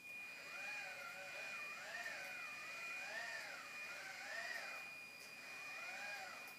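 Whine of a walking motorised toy tortoise, rising and falling in pitch with each stride about once a second, over a steady high electronic whine.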